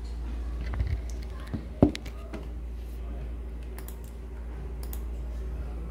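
A few isolated clicks of laptop keyboard keys being pressed, the sharpest a little under two seconds in, over a steady low hum.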